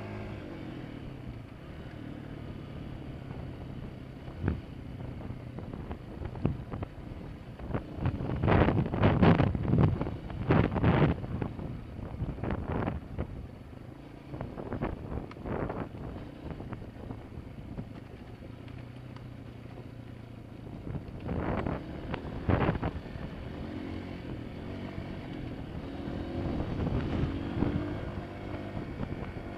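Honda CRF230F dirt bike's air-cooled single-cylinder four-stroke engine running on the trail, its pitch rising and falling with the throttle and climbing near the end. Loud clusters of knocks and rattles come about eight to eleven seconds in and again around twenty-two seconds.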